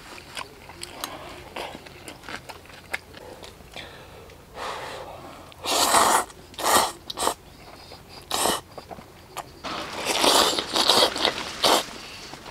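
A person slurping saucy black-bean instant noodles off chopsticks: several short, loud slurps about six to eight seconds in, then a longer stretch of slurping and eating near the end.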